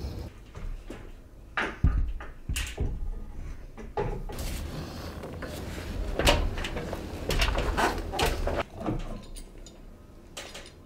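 Hand work on wooden hull planking: irregular knocks, clunks and short scrapes as a plank is handled and a metal bar clamp is set against it.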